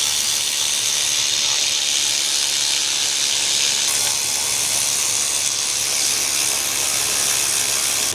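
A steady, even hiss that holds throughout, with no distinct clicks, knocks or tool strokes standing out.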